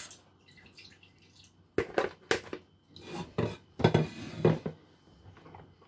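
Plastic salad spinner parts being handled: a couple of sharp knocks about two seconds in, then a busier clatter of plastic on plastic a second later as the basket of kale and the bowl are moved.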